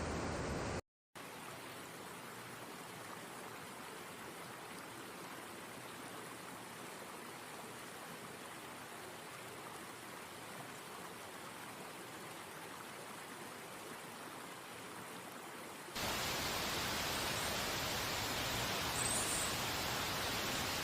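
Steady rushing of flowing stream water, with a brief dropout about a second in. About three quarters of the way through it switches abruptly to a louder, hissier rush.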